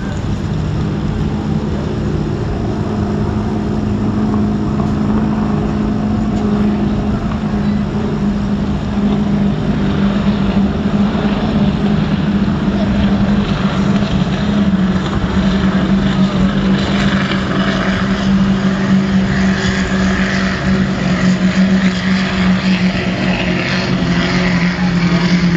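Steady engine drone with a low hum held at one pitch, growing louder over the second half.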